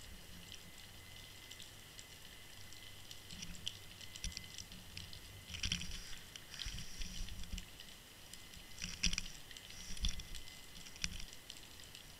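Underwater sound heard through a camera's waterproof housing as it tumbles on its line: a low rumble of moving water with scattered crackles and ticks, and a few louder bursts of crackling in the second half.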